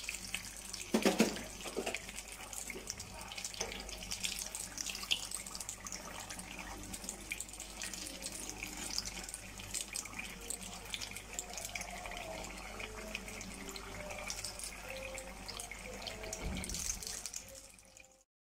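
Samosas deep-frying in hot oil: a steady sizzle full of fine crackling pops, with a louder knock about a second in as the tongs turn them.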